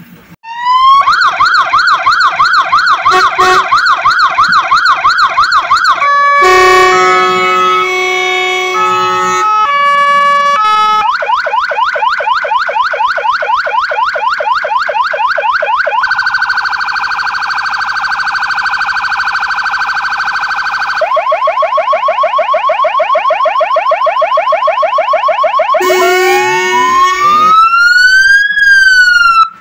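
Fire engine's electronic siren cycling through its tones: a fast up-and-down yelp, then a pattern of stepping fixed notes, quick repeated rising sweeps, a steady held tone, rising sweeps again, and a slow rising and falling wail near the end before it cuts off suddenly. It is loud throughout.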